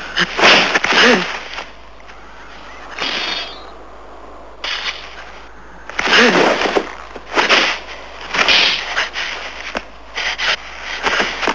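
Sound of two men in a hand-to-hand sword fight: strained grunts and shouts with scuffling and a few sharp knocks, coming in repeated bursts.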